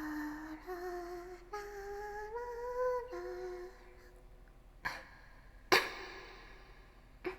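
A young woman humming a short wandering tune for the first three and a half seconds or so, the pitch stepping and sliding between notes. Then come three sharp clicks or knocks, the middle one the loudest.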